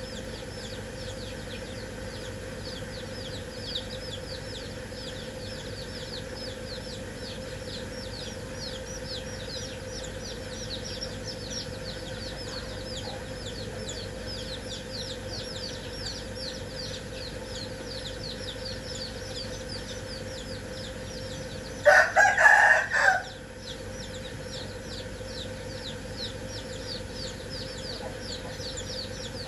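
Domestic chicks peeping nonstop, rapid falling cheeps several a second. Once, about three-quarters of the way through, a rooster crows, loud and just over a second long.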